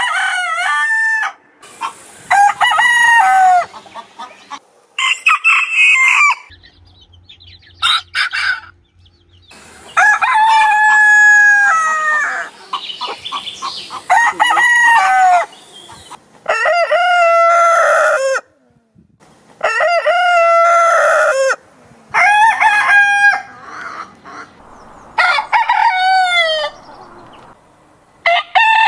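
Roosters crowing: a string of about ten separate cock-a-doodle-doos from different birds, each one to three seconds long and dropping in pitch at the end, with short gaps between.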